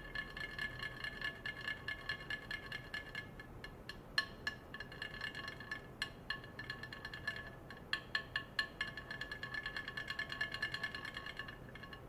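A rod resting in a glass vessel fitted with ultrasonic probes buzzes against the glass under the probes' vibration: rapid clicking over a steady glassy ringing tone that keeps one pitch. It breaks off briefly around four seconds in and again just before the end.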